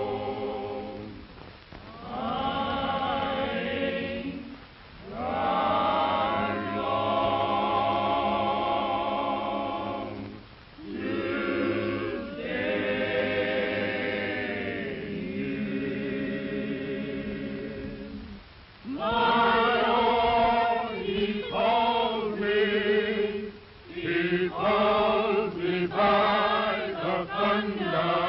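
A choir singing in long held phrases of a few seconds each, with short breaks between phrases. It has the dull, narrow sound of an old film soundtrack.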